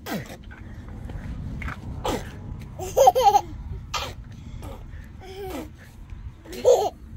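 Short bursts of a person's laughter: three of them, the loudest about three seconds in, another at five and a half seconds and one near the end. Scattered knocks and a low rumble sit beneath.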